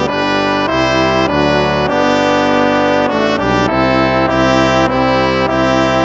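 Instrumental hymn played on brass instruments, sustained chords moving from one to the next.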